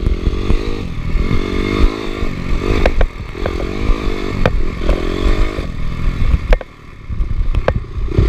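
Off-road motorcycle engine revving up and down in repeated surges as it rides, with knocks and rattles from the bike and camera over bumps; the throttle eases off briefly near the end.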